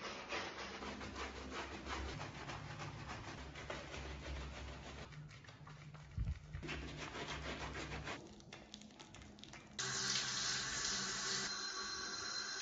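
A sponge scrubbing lather into a dog's coat, a quick run of short rubbing strokes. About ten seconds in, a handheld shower head comes on with a steady hiss of spraying water.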